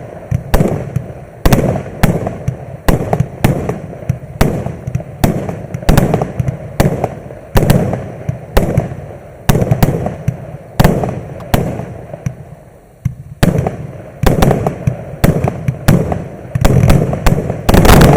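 MAXSEM "Shatter" MC126 106-shot consumer fireworks cake firing a steady string of bursts, about two to three sharp bangs a second, each with a rumbling tail. It closes with a quick cluster of shots near the end.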